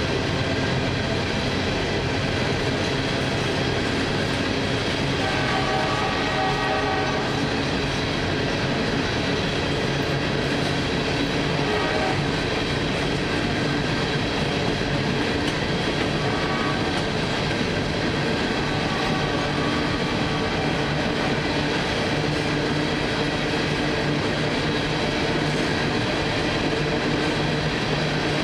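Freight train cars, covered hoppers, rolling steadily past with the continuous noise of steel wheels on rail. A brief pitched tone rises above it about six seconds in.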